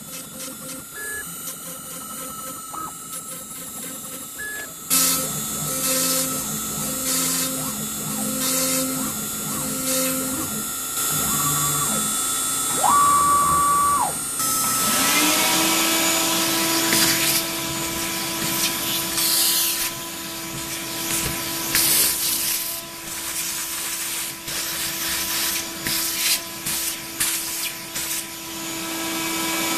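A CNC router runs for about the first half, its drive motors whining in steps of changing pitch as the gantry moves. About halfway through, a shop vacuum starts up, rising in pitch to a steady loud run as it vacuums sawdust off the freshly cut MDF parts, and it winds down just before the end.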